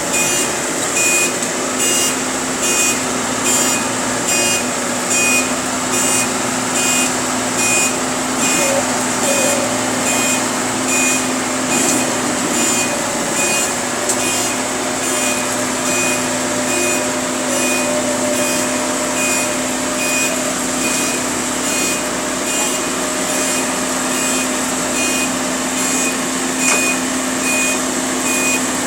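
A vehicle's reversing alarm beeping steadily, about twice a second, over a steady engine hum as a machine backs up.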